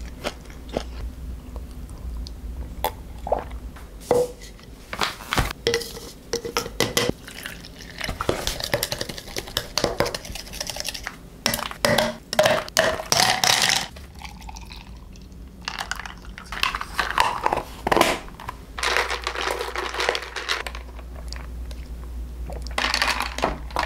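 Tableware and kitchen handling: a spoon clinking against a ceramic bowl, then liquid poured into a tall plastic cup several times, its pitch rising as the cup fills.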